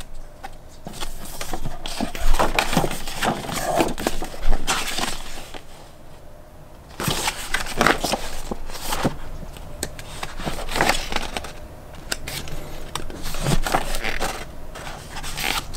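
Paper and packaging rustling and crinkling as a model kit's instruction manual and contents are handled, in irregular crackles and scrapes with a brief lull about midway.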